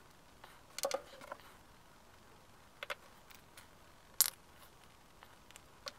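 Scattered light clicks and knocks of a jigsaw's aluminium gear housing and grease tube being handled during reassembly, the sharpest click a little past four seconds in.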